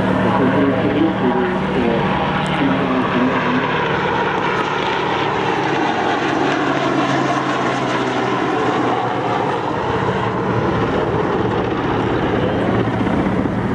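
Helicopter flying past low, its rotor and turbine engines making a steady, loud, chopping drone.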